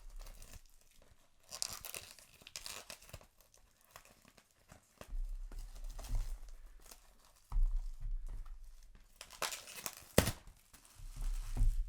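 Packaging of a sealed trading-card booster display box being torn and crinkled open by hand, in several separate bursts of tearing with bumps of handling between them.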